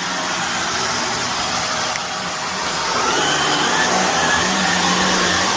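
Shark vacuum cleaner running on a carpet thick with dry soil and debris, a steady rushing of suction that gets louder about three seconds in, with a faint wavering whistle over it.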